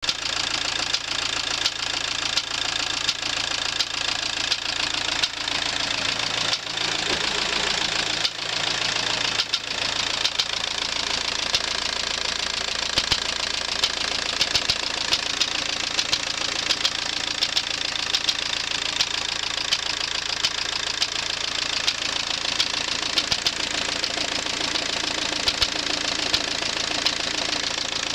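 Volkswagen-group AWX 1.9 TDI diesel engine running with a knock from inside the engine: sharp repeated taps over the steady engine noise.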